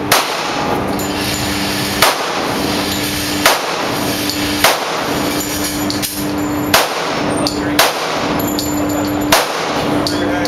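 Gunshots from several shooters firing in their lanes at an indoor shooting range, about seven sharp shots at irregular intervals of one to two seconds, over a steady background hum.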